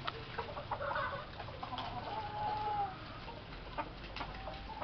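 Rain falling on puddles with scattered small splashes, and a chicken clucking, with one longer held call a little over two seconds in.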